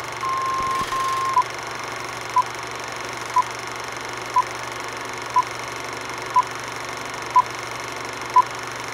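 Film-leader countdown beeps over the steady noise of a film projector: one tone held for about a second, then short beeps at the same pitch, one each second, seven times.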